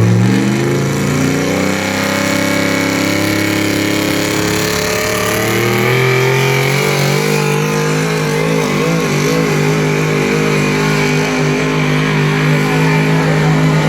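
Pulling truck's engine revving up hard in the first couple of seconds, then held at high revs under load as it drags the sled. Its pitch wavers around the middle and settles slightly lower toward the end.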